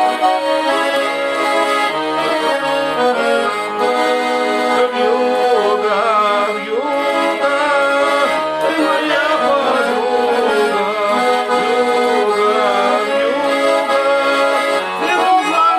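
Accordion playing a traditional-style tune in sustained chords.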